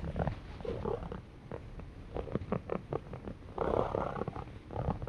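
Domestic cat purring up close, a low pulsing rumble that grows louder for a moment about three and a half seconds in.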